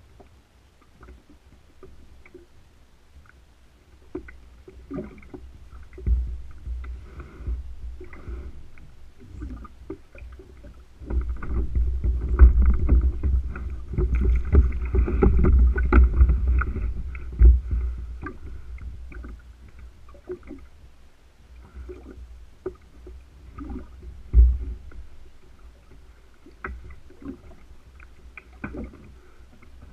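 Water slapping and sloshing against a kayak hull, with a low rumble that swells through the middle and scattered knocks and clicks.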